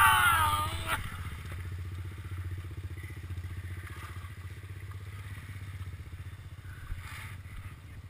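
A quad (ATV) engine idling with a steady low pulse. In the first second there is a louder, short, wavering sound.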